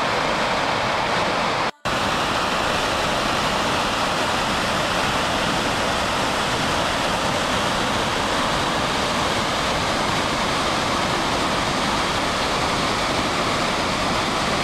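Dettifoss waterfall: a heavy, steady rush of water pouring over the falls. The sound drops out for a moment just under two seconds in, then carries on unchanged.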